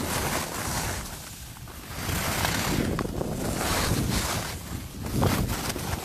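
Wind rushing over the microphone of a skier on the move, mixed with the hiss and scrape of skis carving on packed snow, swelling and easing in waves.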